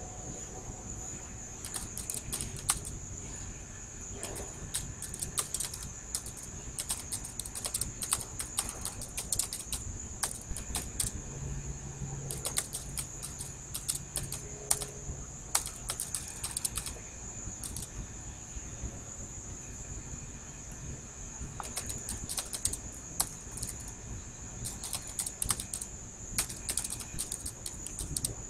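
Computer keyboard being typed on in quick bursts of keystrokes with short pauses between them, over a steady high-pitched whine.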